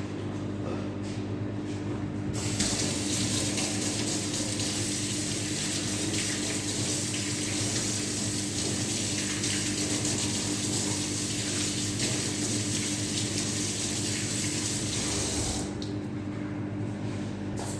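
Water running in a steady rush for about thirteen seconds, starting about two seconds in and stopping shortly before the end, over a steady electrical hum.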